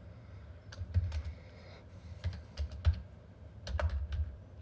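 Typing on a computer keyboard: irregular keystrokes in small clusters with short pauses between them.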